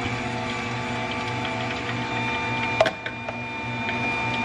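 Aobosi cold-press juicer running with a steady motor hum as its auger crushes fed-in vegetable pieces, with a sharp crack about three seconds in.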